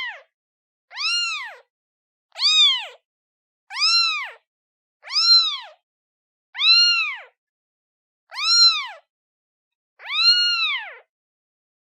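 A newborn kitten meowing for its mother: about eight high-pitched meows in a steady series, one every second and a half or so, each rising and then falling in pitch.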